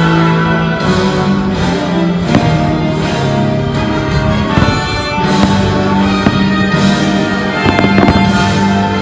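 Fireworks show soundtrack music playing steadily, with several firework shells bursting over it, a few sharp reports standing out.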